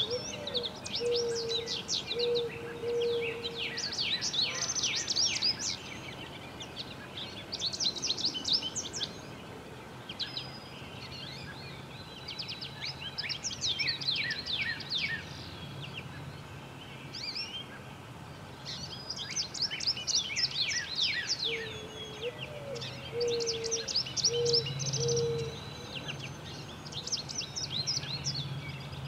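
Wild songbirds singing outdoors: repeated quick clusters of high, rapid chirps and trills. A lower, slower series of short hooting notes comes twice, near the start and again about three-quarters of the way through.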